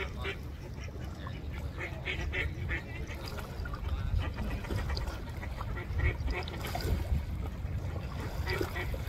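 Mallards calling: short calls in quick runs, thickest in the first few seconds and scattered after, over a steady low rumble.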